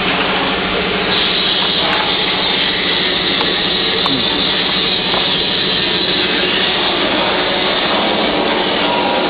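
Veneer splicing machine running: a steady, loud mechanical whir with a constant low hum, and a few light clicks in the first half.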